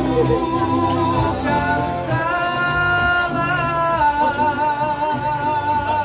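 Live singing with band accompaniment: a singer holds long notes over a steady low beat, and the last note, from about four seconds in, has a wide vibrato.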